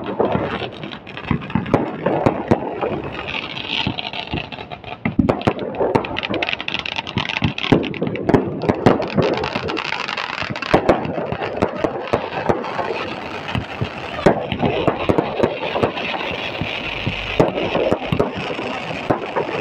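Fireworks crackling and popping, with many sharp cracks scattered throughout, over the noise of a large crowd.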